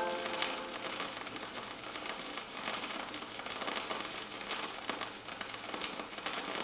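Vinyl record surface noise in the gap between songs: a steady hiss with scattered crackles and clicks, as the last notes of the previous song die away at the start.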